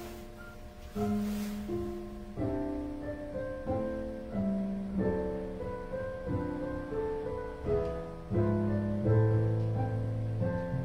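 Piano playing a church service prelude: notes and chords struck every half second or so, each fading away.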